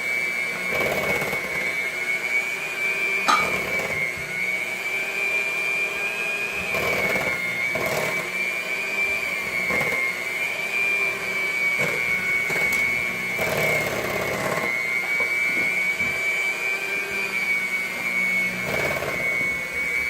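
Electric mixer running steadily with a high, slightly wavering motor whine as it beats egg and vanilla into cookie dough, with a few brief knocks from the beaters against the bowl.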